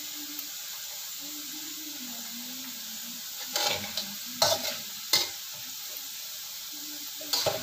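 Potato sticks sizzling steadily in hot oil in a wok. From about halfway in, a spatula scrapes and knocks against the wok in a few short strokes as the potatoes are turned.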